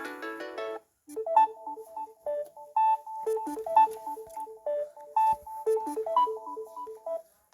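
Samsung Galaxy Tab A 8.4 ringtones. A fuller ringtone cuts off within the first second, and after a short pause a simple melody of short, clean notes plays for about six seconds, stopping just before the end.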